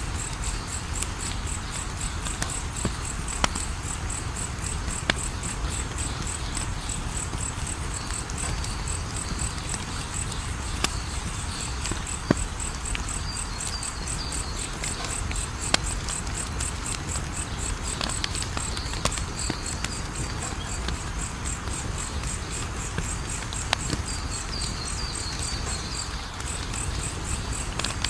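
Wood fire crackling, with a sharp pop every few seconds over a steady low rush. Over it, an insect chirps in a high, fast, even pulse.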